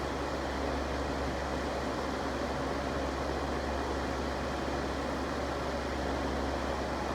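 Electric fan running steadily: an even whoosh of moving air over a constant low hum.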